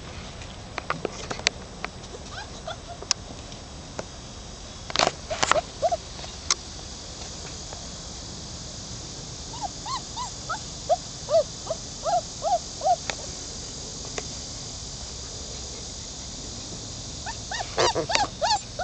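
Newfoundland puppies whimpering and yipping in short, high cries: a run of them in the middle and a cluster near the end, over a steady high hiss.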